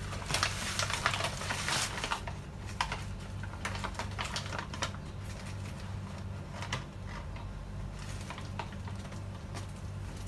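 Off-camera kitchen handling noise: a dense run of crackling clicks for about the first two seconds, then scattered single clicks, over a low steady hum.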